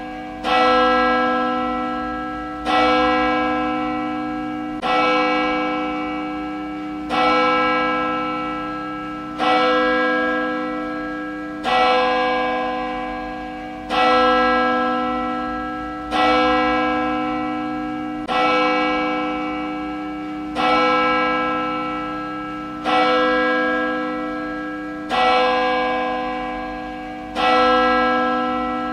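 Church bell tolling steadily, struck about every two seconds, each stroke ringing on with rich overtones and fading into the next.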